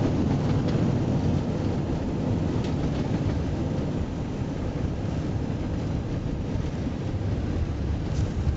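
Low, steady rumble inside an Airbus A320 cockpit during the landing rollout: the engines in reverse thrust and the wheels on the runway as the airliner decelerates after touchdown, easing a little about halfway through.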